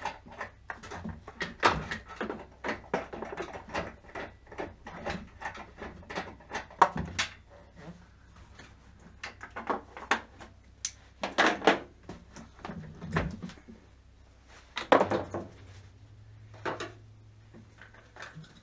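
Hands working in a Honda Civic's engine bay: irregular clicks, knocks and clatters of plastic and metal parts being handled and pulled loose, with a faint steady low hum underneath.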